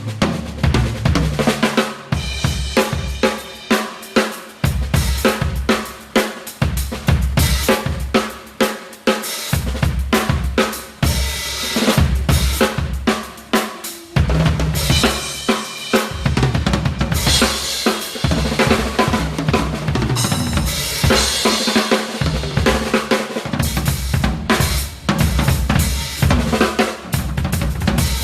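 Crush acoustic drum kit played continuously as a sound check: kick drum, snare and hi-hat grooves and fills with crash cymbals (Zildjian A Customs) ringing over them.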